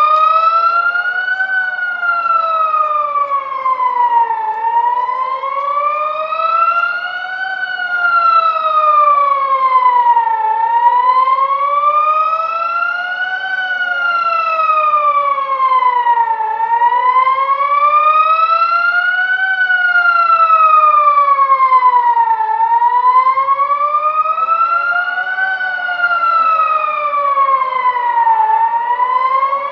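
Civil-defence warning sirens wailing, each slowly rising and falling in pitch about once every six seconds. At least two sirens sound at once, at different pitches and out of step with each other.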